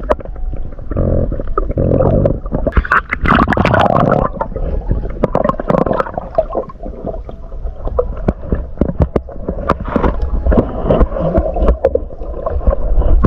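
Muffled underwater gurgling and bubbling picked up by a submerged camera as a diver swims, with many sharp clicks and knocks over a low rumble.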